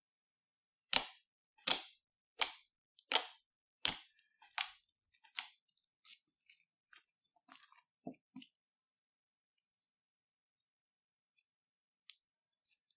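Clear slime being pressed and worked by hand, giving sharp, wet clicks and pops about once every three-quarters of a second. After about five seconds they thin out into a few faint scattered pops.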